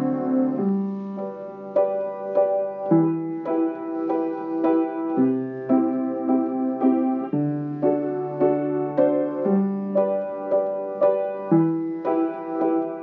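Slow piano music playing a repeating four-chord pop progression in G (G, Em, C, D7). A new chord comes about every two seconds, its notes struck in an even pulse.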